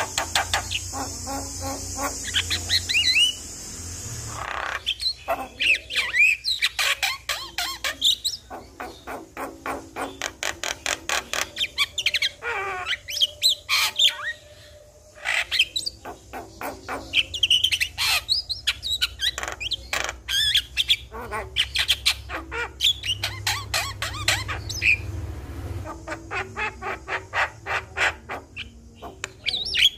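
Javan mynas (jalak kebo) singing in a busy, chattering run of harsh squawks, rapid clicking notes and short whistles, with a brief lull about halfway through.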